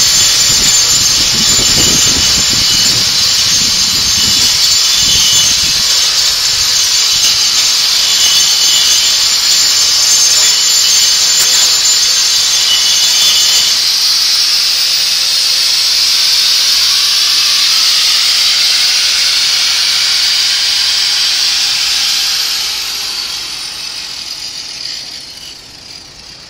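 A power tool stripping old paint and rust from a metal fire escape: a loud, steady hiss with a high whine in the first half. It fades over the last few seconds.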